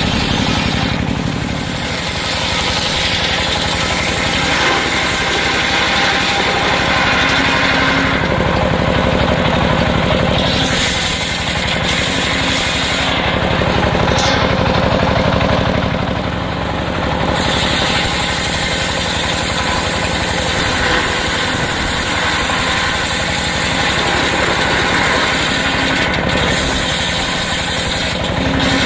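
Circular sawmill running with a steady low machine drone, while a high hiss swells and fades several times over it as timber is sawn.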